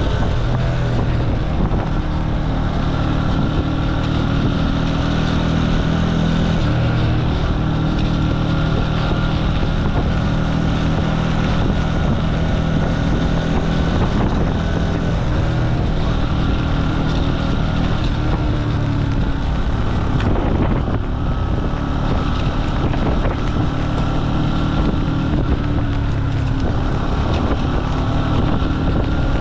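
Jialing 150 cc single-cylinder motorcycle engine running under way, its pitch rising and falling as the revs change, with wind buffeting the microphone.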